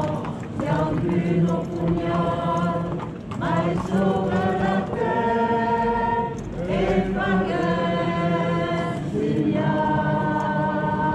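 A choir singing in long held notes, in phrases of two to three seconds with short breaks between them.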